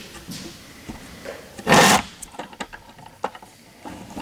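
Short clicks and rattles of a leash being unclipped and swapped on a dog's collar, with one brief loud rushing noise a little under two seconds in.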